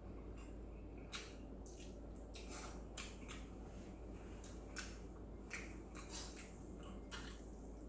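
A person eating stir-fried instant noodles close to the microphone: faint, irregular wet mouth sounds of chewing and slurping, over a steady low hum.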